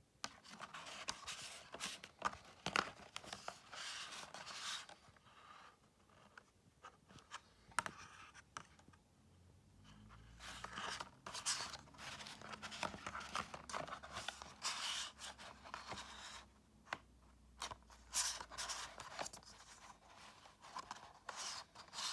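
Hands handling DVD box-set packaging: rustling and scraping with sharp clicks, coming in bursts with short pauses.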